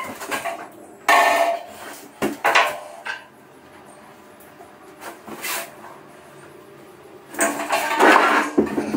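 Steel panel radiator clanking and scraping against its wall brackets as it is hung and lifted off again, in several separate bursts of metallic clatter, the longest near the end.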